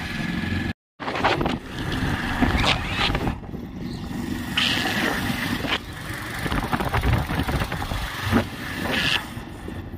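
Wind buffeting the microphone over the running engine of a moving two-wheeler, a dense rumbling rush, cut by a brief silent gap about a second in.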